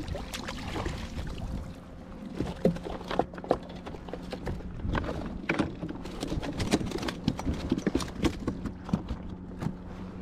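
Irregular hard knocks and taps, many of them in quick succession, with a faint steady hum starting about two seconds in.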